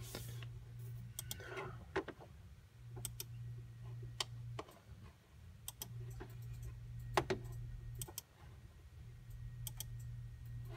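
Scattered single clicks from a computer being operated, a second or more apart, over a steady low hum.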